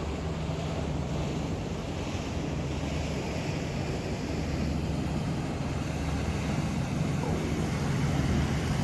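Motorboat engine running as a boat comes through the inlet, its low hum slowly growing louder, over the wash of water and wind on the microphone.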